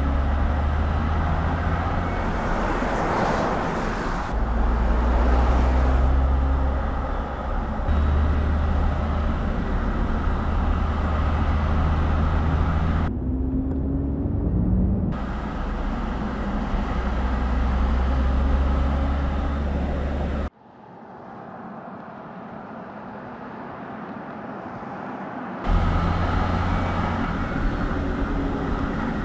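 Battery-electric Mercedes EQS SUV driving on the road: steady tyre rumble and road hiss with no engine note. The sound changes abruptly several times between recordings, with a much quieter stretch of about five seconds about two-thirds of the way through.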